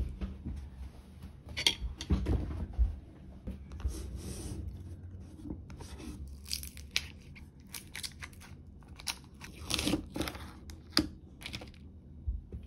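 A paper ice-cream cup being opened: the lid and plastic inner film are pulled off with tearing and crinkling, among sharp clicks and taps of the cup and lid handled on a table.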